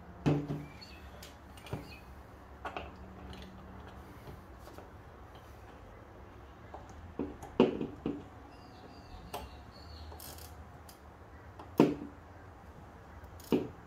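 Irregular sharp knocks and clicks of a rebuilt brake master cylinder being handled and set down on a work table, about eight in all, with a faint steady hum underneath.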